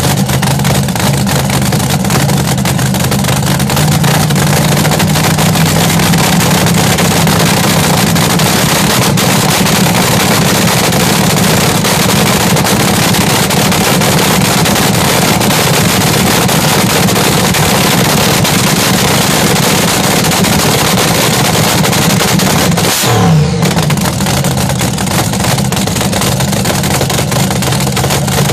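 Supercharged front-engine dragster engine running at a loud, steady idle, with one quick throttle blip about three-quarters of the way through.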